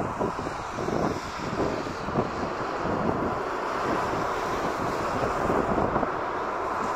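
Four-engine Airbus A340-300 jet on short final, its CFM56 engines running with a steady whine, mixed with gusty storm wind buffeting the microphone.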